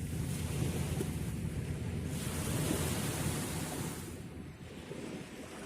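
Wind rumbling on the microphone over the wash of sea surf. The sound eases a little about four seconds in.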